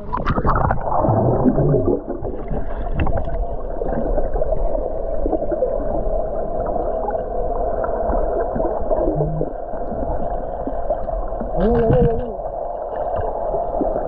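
Boat motor running steadily, a constant drone with wind and water noise.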